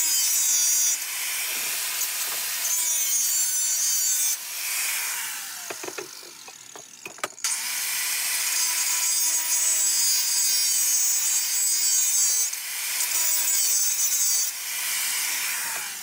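Makita angle grinder running and grinding into metal held in a vise, with a steady motor whine under the harsh grinding. It eases off about four seconds in with a few knocks, bites in again about three seconds later, then winds down with a falling pitch near the end.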